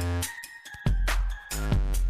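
Electronic background music with a deep bass and regular drum hits; the bass drops out for about half a second partway through, then comes back.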